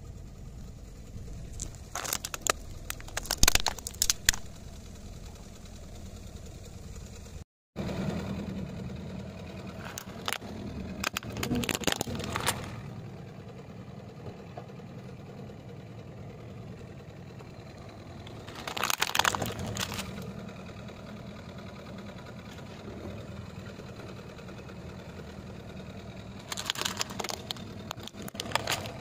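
A car tyre rolls over plastic toys and crushes them, giving several clusters of sharp cracking and crunching of breaking plastic. The car's engine idles steadily underneath.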